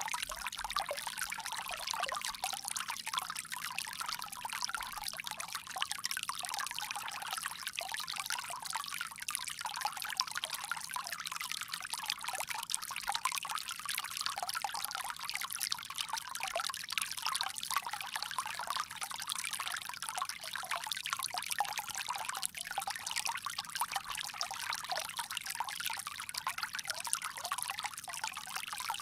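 Water pouring steadily from a bamboo spout, a continuous splashing trickle with no pauses.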